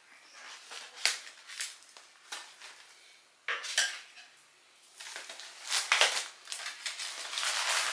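Metal scissors clicking as they snip into a package, followed by cardboard and plastic packaging rustling and crinkling as it is pulled open and handled.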